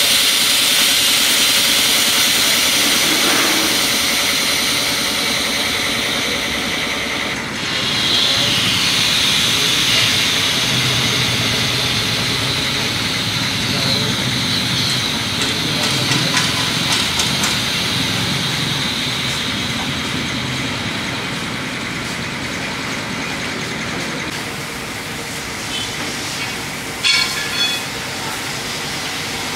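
Steady hiss from a car-wash hydraulic lift being let down, with a car engine running low through the middle stretch. A few sharp clicks come near the end.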